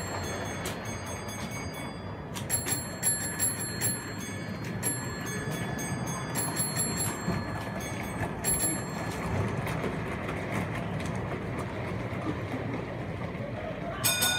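Model railway train running on the layout: a steady running noise of small wheels on rail, with scattered light metallic clicks and short high-pitched clinks, mostly in the first half and again near the end.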